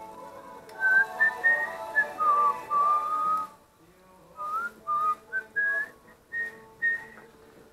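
Someone whistling a tune: clear single notes in short melodic phrases, with a pause about halfway through.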